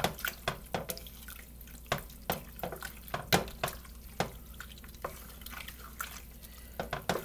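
Wooden spoon stirring egg noodles through a wet, melting cheese sauce in a stainless steel pot: irregular wet squelches and clicks.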